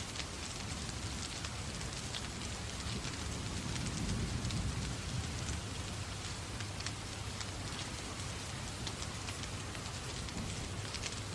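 Steady rain falling, mixed with sparse small crackles of a fireplace fire; a low rumble swells briefly about four seconds in.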